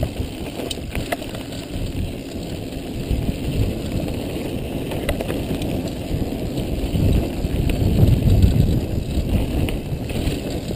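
Mountain bike riding fast down a gravel singletrack: tyres rumbling and crunching over loose stones, with knocks and rattles from the bike over bumps and wind buffeting the microphone. The noise gets louder about two-thirds of the way through.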